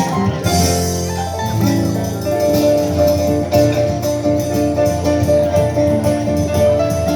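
Harp playing music, with quick plucked notes over sustained bass notes.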